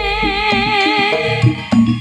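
Live Javanese jaranan band music: a wavering melody line over a bass line and sharp drum strikes.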